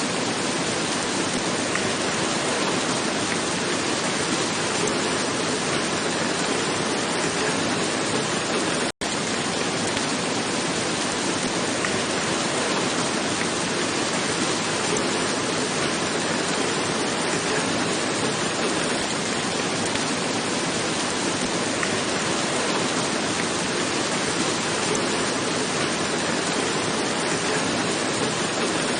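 Steady rain falling on a roof: a dense, even patter of drops. There is a split-second gap in the sound about nine seconds in.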